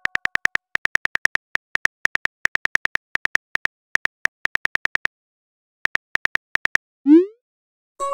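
Simulated phone keyboard clicks as a message is typed, about six taps a second in short runs with brief pauses. Near the end comes a short rising swoosh as the message is sent.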